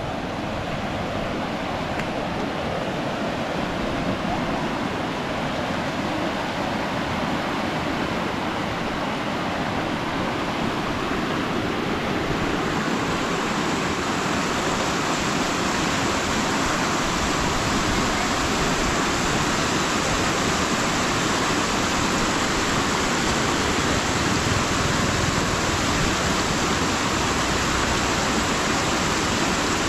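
Floodwater rushing steadily, an even noise of flowing water that turns hissier about twelve seconds in.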